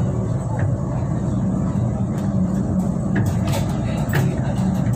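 Diesel passenger train running along the track, heard from inside the rear car: a steady low rumble with several sharp clicks in the second half.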